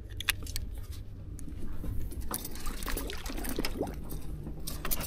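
Metal fish stringer clinking and rattling as a bass is clipped on and let down over the boat's side, with scattered sharp clicks, some splashing of the fish in the water and a louder clatter near the end, over a steady low rumble.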